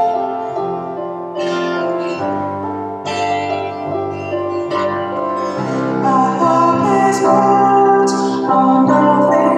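Slow instrumental music led by a plucked guitar, playing held chords that change every second or so, growing fuller and louder about six seconds in.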